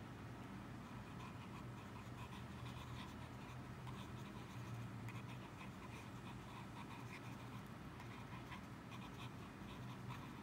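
Extra-fine steel nib of a Lamy Safari fountain pen scratching on sketchbook paper in quick, short, irregular scribbling strokes, over a faint steady low hum.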